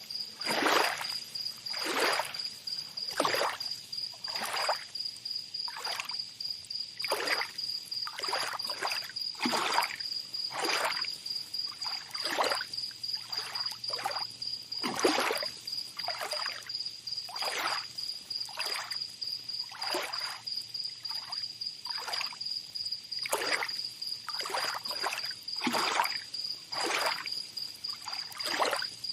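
Small waves lapping and splashing on a beach in quick, uneven washes about once a second, with an insect's steady high trill running underneath.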